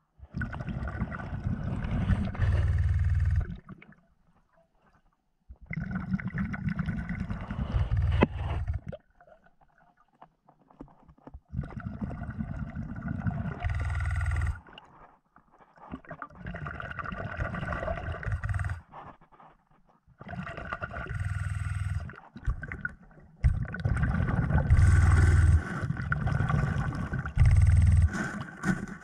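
A diver breathing through an underwater regulator: each exhale is a loud rush of bubbles lasting about three seconds, broken by short quiet pauses for the inhale, six or seven breaths in a row.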